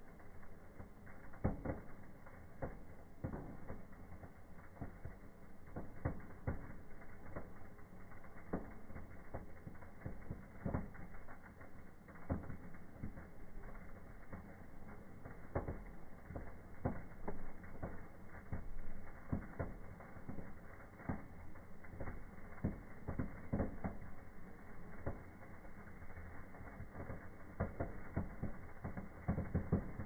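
Sparklers burning with irregular sharp crackles, denser near the end.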